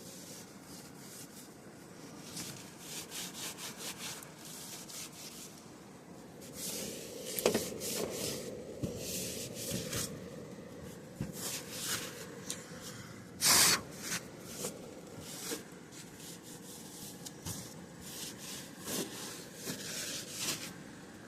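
Irregular rubbing and scrubbing strokes from hand cleaning work on an air-conditioning condenser unit, with one loud, brief rush of noise a little past the middle.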